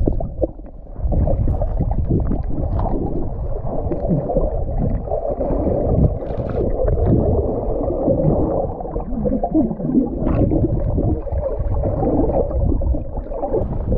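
Water sloshing and gurgling close to the microphone, a dense, uneven, muffled low rumble with no steady rhythm.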